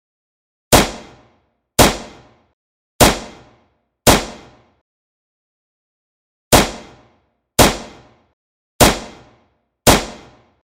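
9mm pistol shots: eight single shots in two groups of four, about a second apart, each dying away within about half a second.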